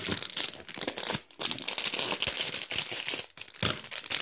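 Clear plastic wrapper crinkling and rustling as it is handled and pulled open by hand, broken by two short pauses.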